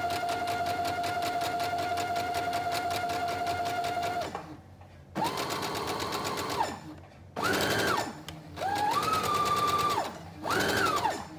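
Domestic electric sewing machine (a Brother Project Runway Limited Edition) stitching a long ease stitch along a knit sleeve cap. The motor whine and rapid, even needle strokes run steadily for about four seconds and stop. The machine then starts and stops in four short runs, its whine rising at each start and falling at each stop.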